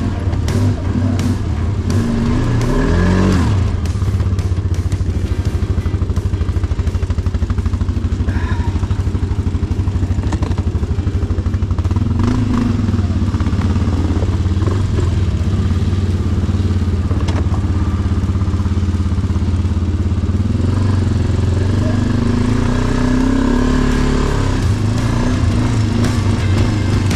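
SHARMAX quad bike's engine running under load off-road, its pitch rising and falling a few times as it is revved and eased off.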